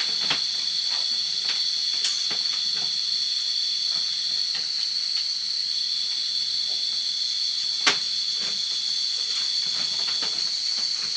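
Steady high-pitched insect chorus, several constant tones at once, one of them dropping out and coming back twice. Scattered faint clicks run under it, with two sharper knocks, about two seconds in and near eight seconds.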